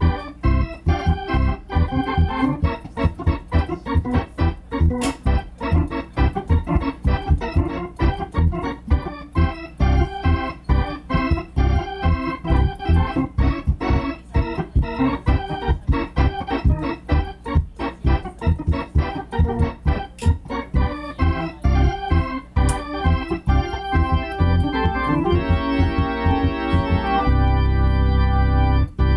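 Two-manual organ played in a quick run of short, detached chords with a strong low bass, settling near the end into long held chords over a sustained low note.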